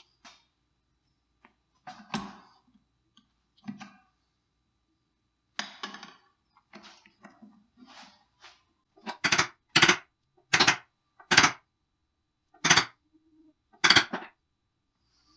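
Hammer blows on a twisted steel bar lying on a wooden block, straightening it: soft clinks and knocks of handling, then six sharp strikes over about five seconds starting about nine seconds in.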